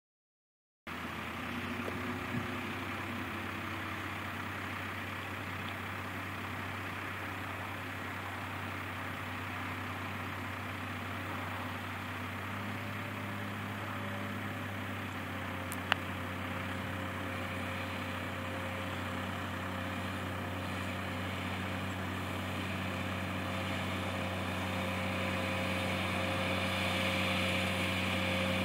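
Farm tractor engine running steadily, gradually getting louder over the last several seconds. A single sharp click comes about halfway through.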